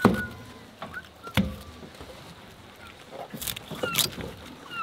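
Sharp knocks of a knife and fish against an aluminum diamond-plate boat deck as sockeye salmon are cleaned. The loudest knock comes at the very start, another follows about a second and a half in, and a few more come near the end. Short, high bird calls sound in the background.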